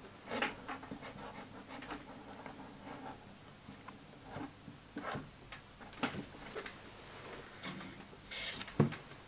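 Scattered light taps, clicks and scrapes from handling a wooden sand-casting moulding flask, ending in a short scraping hiss and one sharp knock.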